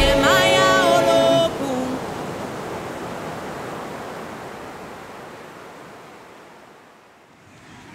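Music ends with a held, wavering note about a second and a half in, leaving the steady wash of ocean surf breaking on the beach, which fades away over the next several seconds.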